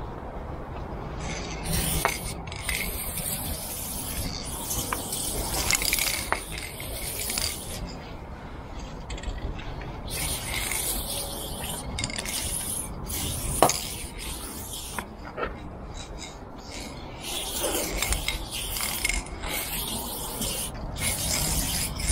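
Aerosol spray paint can hissing in repeated bursts of one to two seconds as lines are sprayed on a freight wagon's side, with a few sharp clicks in between.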